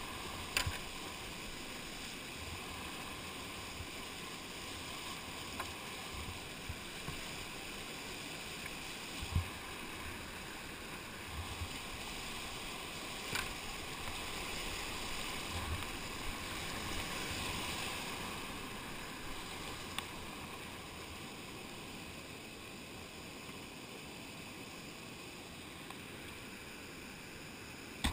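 Steady rush of whitewater rapids heard from a kayak, with a few short knocks and splashes.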